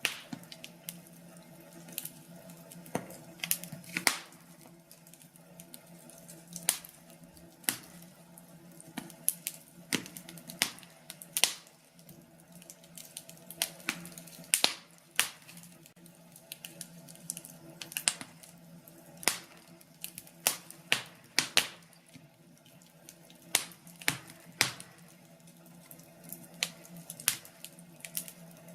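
Fire in a fireplace crackling, with irregular sharp pops, a few of them much louder, over a faint steady hum.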